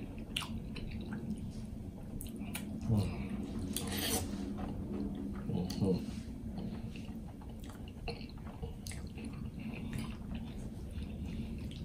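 Close-miked eating of creamy shrimp Alfredo pasta: chewing and slurping noodles off a fork, with irregular wet mouth clicks and smacks throughout.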